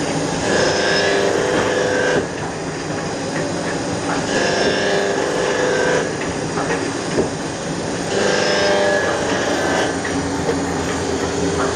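Muller Martini book-binding machine running, with a steady humming tone that swells in for a second or two about every four seconds as it cycles.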